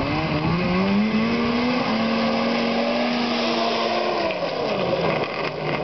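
Snowmobile engine rising in pitch as it speeds toward the listener, holding a steady high note, then dropping in pitch as it passes close by about four seconds in and pulls away.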